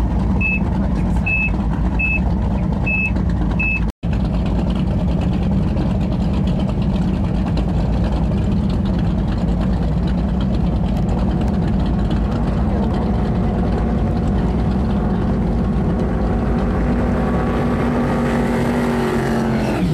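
Offshore powerboat's engines climbing steadily in pitch as the boat closes in at high speed, then dropping in pitch as it passes close by near the end, over a steady noise of wind and running engine. Six short high beeps sound in the first few seconds.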